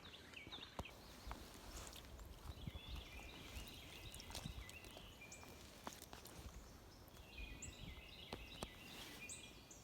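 Faint woodland ambience: a songbird sings two runs of quick chirping notes a few seconds apart, over scattered light clicks and crackles.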